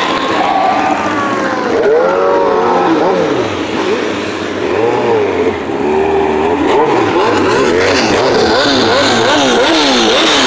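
Several motorcycles, dirt bikes and sport bikes among them, revving in traffic, their engine pitch rising and falling again and again. Near the end one engine gives quick throttle blips, about two a second.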